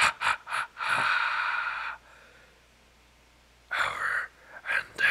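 A man making loud, exaggerated breathy gasps and huffs: a quick run of sharp gasps, then a drawn-out breathy rasp. After a pause of near silence, a few more sharp gasps come near the end.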